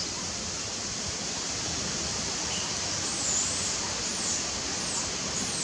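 Steady outdoor hiss of ambient noise, with a high, short chirping call repeated about every half second starting about three seconds in.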